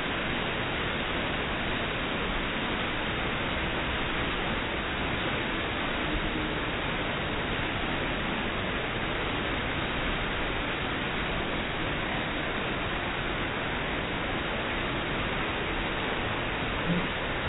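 Steady rush of a wide water curtain pouring from an overhead ledge into a pool and churning the surface.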